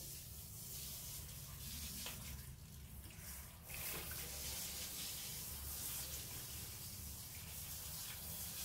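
Water spraying from a hand-held hose sprayer onto a cat and the tiled floor as the cat is rinsed, a steady hiss that gets a little louder about four seconds in.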